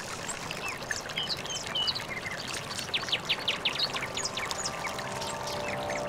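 Running river water with many birds chirping in quick short calls overhead. Soft music with held notes comes in over them near the end.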